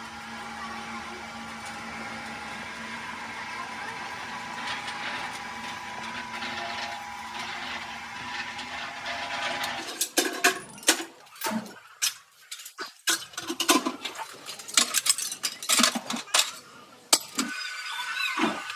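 Workshop machinery running with a steady hum and several held tones, which stops suddenly about ten seconds in. It is followed by an irregular series of sharp metallic clanks and knocks with short quiet gaps between them.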